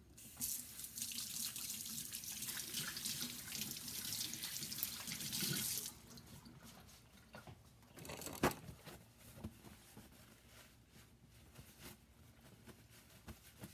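Kitchen tap running into the sink as dough-covered hands are rinsed under it, stopping abruptly after about five and a half seconds. A single sharp knock follows about two and a half seconds later.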